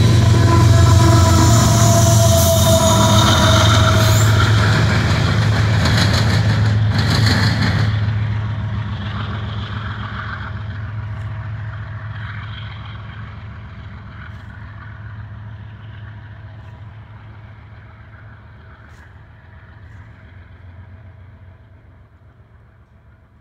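A CN diesel locomotive and covered hopper cars of a freight train pass close by: a steady engine hum with a few held tones and wheel-on-rail noise. After about eight seconds the hiss drops away and the sound fades steadily as the train moves off.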